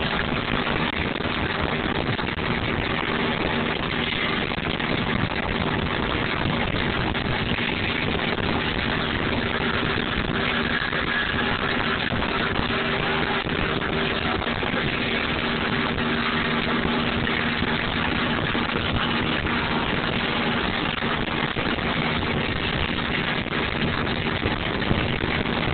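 Motorboat under way: the engine runs at a steady hum under a constant rush of wind and water past the hull.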